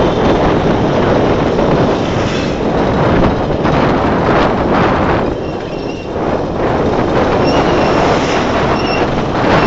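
A motorized tricycle travelling along a paved road: a steady, loud rush of engine, tyre and wind noise that eases briefly about six seconds in.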